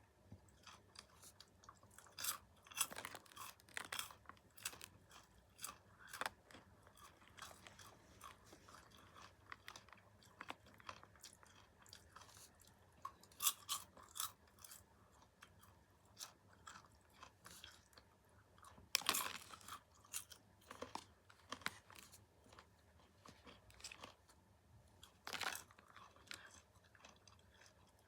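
Close-miked chewing of popcorn: crisp crunches and crackles, coming in clusters every few seconds, with louder bites about 2, 13, 19 and 25 seconds in.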